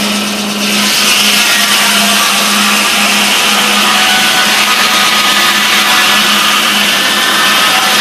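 Large circular saw blade of an 1890s steam-powered sawmill ripping a board off a log on the moving carriage. It makes a loud, steady, high sawing noise over a steady low hum, growing louder about a second in.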